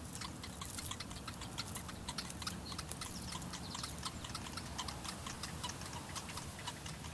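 Little bittern chicks begging to be fed, a faint, dense run of quick, irregular ticking clicks: the chicks' hunger call to the parent bird.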